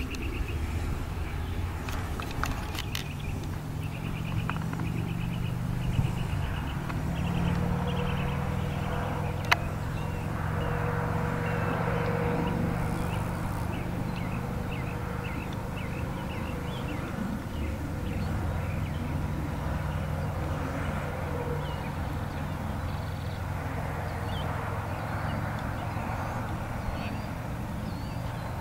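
A steady low engine hum, its pitch shifting a couple of times, with a few faint clicks.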